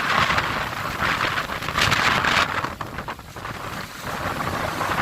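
Hurricane-force wind buffeting the microphone in uneven gusts, easing briefly about three seconds in.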